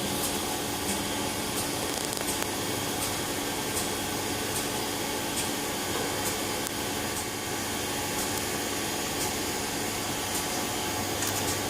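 SIMAL CNC door machine running: a steady whirring hiss with a few steady tones and faint light ticks a little more than once a second.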